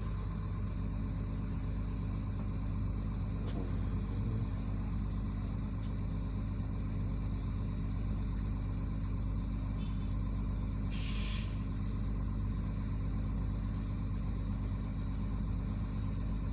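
Mobile crane's diesel engine running steadily, with one short hiss of air about eleven seconds in.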